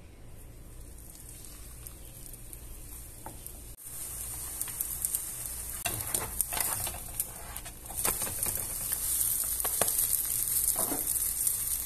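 Masa huarache frying in hot lard in a skillet: a steady sizzle with scattered pops and crackles. The sizzle is faint at first, gets louder about four seconds in, and louder again around eight seconds in.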